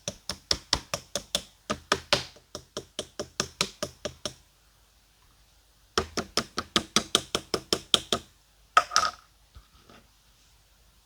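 Clear slime being pressed and poked rapidly by hand, giving quick sharp clicks at about five to six a second. The clicks come in two runs with a pause of about two seconds between them, then a short cluster near the end.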